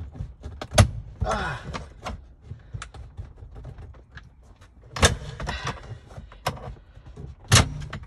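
Hands working a car's gear shift assembly and its plastic console parts: sharp knocks and clicks, four loud ones about a second in, around five and six and a half seconds in, and near the end, with scraping and rattling between.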